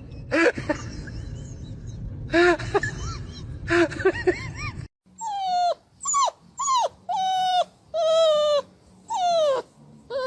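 A dog whining and whimpering: a few short cries over background noise, then after a cut a run of about seven separate cries, each falling in pitch.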